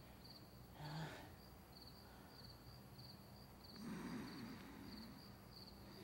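Faint cricket chirps repeating about twice a second, a night-time sound effect. Over them, a puppet character breathes softly as he drifts off to sleep: a short sound about a second in and a longer breath about four seconds in.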